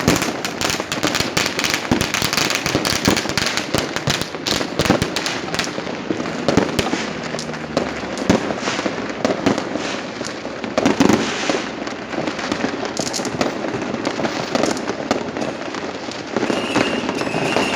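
Fireworks and firecrackers going off all around in a dense, continuous crackle of bangs and pops. A steady high whistle joins in near the end.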